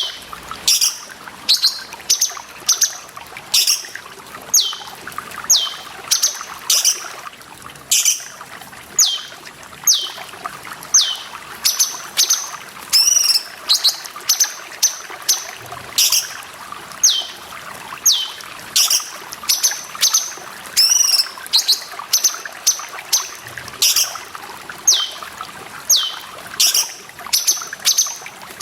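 Cucak cungkok, a bulbul, calling over and over: short high notes that each drop quickly in pitch, about one a second, with an occasional warbled note. Steady running or trickling water runs underneath.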